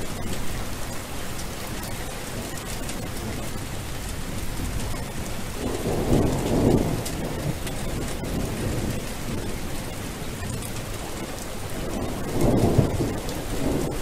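Steady rain falling, with two low rolls of thunder, one about six seconds in and another near the end.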